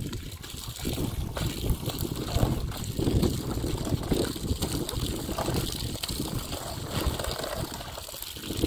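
Clothes being washed by hand in a plastic basin: water sloshing and splashing as the fabric is rubbed and squeezed, with wind rumbling on the microphone.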